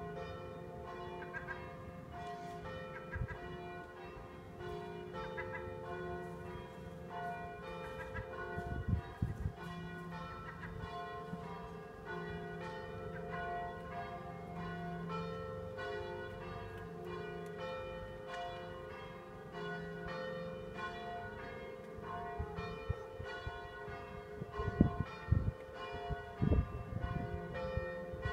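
Church bells ringing, several bells sounding in turn with their tones overlapping and dying away. A few low bumps break through about nine seconds in and again near the end, the loudest moments.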